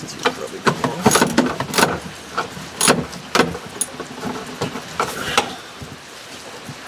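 Irregular metallic clicks, clinks and knocks of hand tools and loose metal parts as a fastener in the Jeep Cherokee's interior trim is worked on. The fastener won't let go, which the workers put down to a nut on the back side, maybe a rusted captive nut. The knocks are loudest and most frequent in the first three seconds or so, then fewer and fainter.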